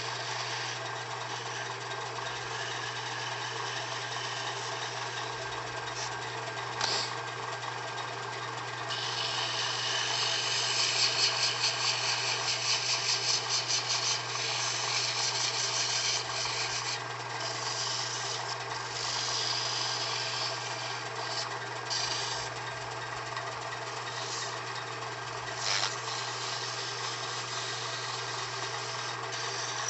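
Wood lathe running with a steady motor hum while sandpaper rubs against the spinning hard maple finial. The rubbing hiss is loudest and pulses rapidly for a few seconds about ten seconds in, with a few short clicks.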